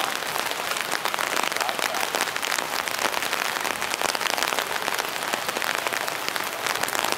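Steady rain falling: an even hiss made of many small drops.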